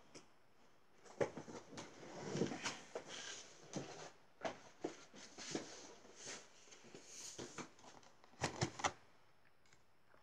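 Irregular rustling, light clicks and knocks of objects being handled at a sewing table, with a quick cluster of sharper knocks near the end.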